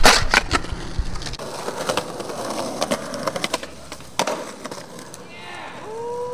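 Skateboard rolling on concrete with repeated clacks and pops of the board, and a sharp smack of a landing about four seconds in. Wind rumbles on the microphone for the first second or so, then cuts off.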